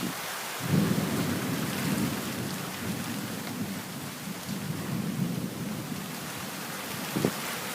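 Thunder rumbling low, starting about a second in and rolling on in swells for several seconds, over the steady hiss of falling rain.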